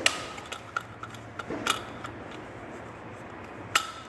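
Sharp clicks and light taps of the plastic parts of a toilet cistern fill valve being handled and pressed back into place: three louder clicks, near the start, about a second and a half in, and near the end, with softer ticks between.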